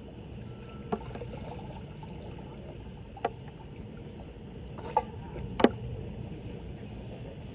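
Floodwater running steadily into a street drain, with four sharp knocks spread across it, the last the loudest.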